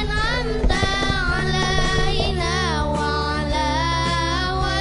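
Background music: a high, child-like or female voice singing a melody with vibrato over a steady accompaniment.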